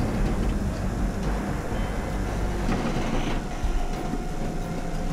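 Heavy diesel truck engines running steadily under load. A faint steady whine joins about halfway through.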